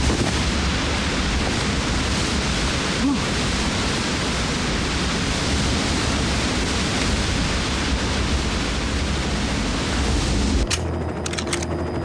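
A large waterfall rushing: a steady, dense hiss of falling water. Near the end it cuts off abruptly into the hum of a helicopter cabin.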